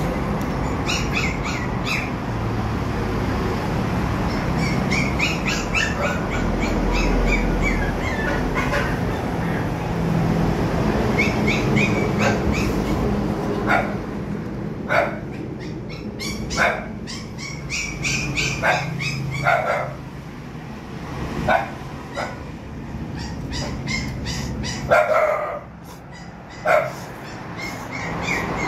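Road traffic rumbling past, heavy vehicles included, through the first half, with small birds chirping. From about halfway a dog barks in short single barks, about eight or nine times, spaced a second or two apart.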